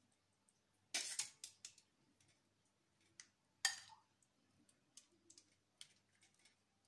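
A metal spoon clicking and scraping against a ceramic bowl and baking dish as a butter mixture is spooned out: a quick cluster of clicks about a second in, a sharper single click near the middle, and light ticks in between, all faint.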